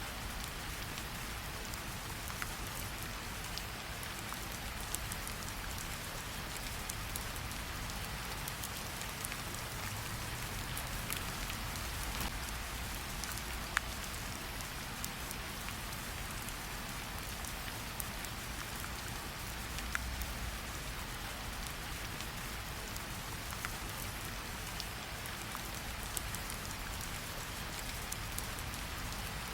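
Steady rain falling with a low rumble underneath, and a few sharp pops from a crackling campfire scattered through it, the loudest about 14 and 20 seconds in.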